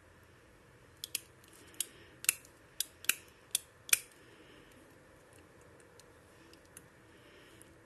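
Hard plastic clicks and snaps, about eight of them over some three seconds starting about a second in, as the removable plastic shell of a Teenage Mutant Ninja Turtles action figure is pressed back onto its body.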